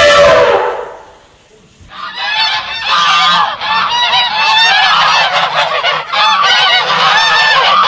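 A flock of waterfowl honking and calling, many short calls overlapping, starting about two seconds in. Before that, a loud falling trumpeting call ends within the first second.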